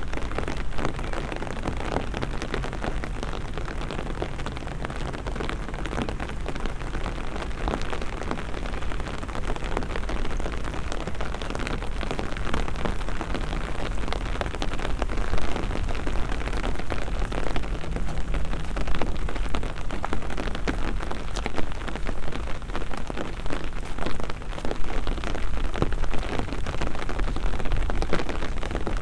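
Rain falling steadily, a dense patter of drops striking surfaces close to the microphone, growing a little heavier about halfway through.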